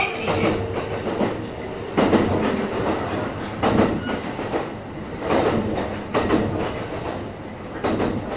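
Kintetsu 1031 series electric train running between stations, heard from inside the car: a steady low running rumble with the wheels knocking over rail joints in close pairs every second or two.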